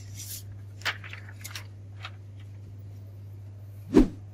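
A sheet of printer paper rustling as it is pulled from the printer's output tray, then a single sharp thump about four seconds in, over a steady low hum.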